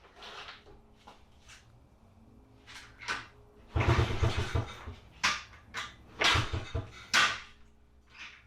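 The 1991 Honda Z50R's small single-cylinder four-stroke engine being kick-started several times from about three seconds in. On each kick it turns over briefly with a quick run of low chuffs but does not catch and run.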